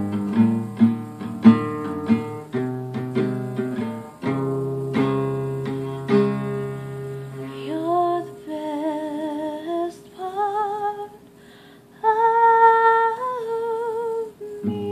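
Acoustic guitar played in strummed and picked chords for about seven seconds. Then a woman's voice alone holds long wordless notes with vibrato, and the guitar comes back in at the very end.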